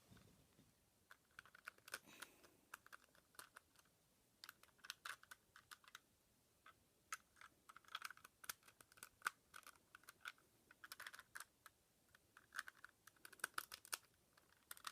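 Faint, quick plastic clicking from a Rubik's Cube being handled, its layers turned and pieces pushed back into place, coming in several short bursts with pauses between.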